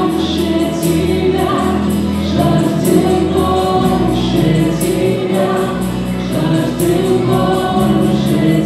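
A live worship band playing: several voices singing together over acoustic guitar, electric bass and keyboard, with a steady beat.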